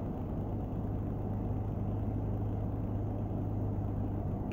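Low, steady rumble with a constant hum inside a car cabin.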